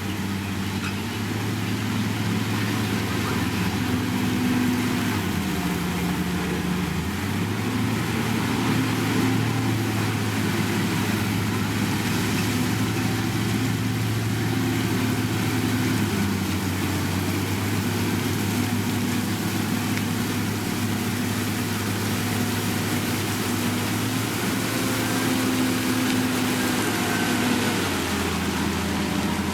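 Heavy diesel engine of a road-construction machine running steadily. Its note dips lower for a second or so about six seconds in, and again near the end.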